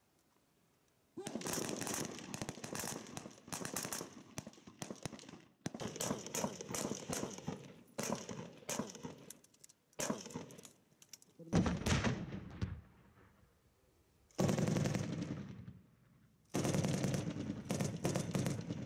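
Gunfire on a shooting range: rapid strings of shots in several separate stretches, with short gaps between them.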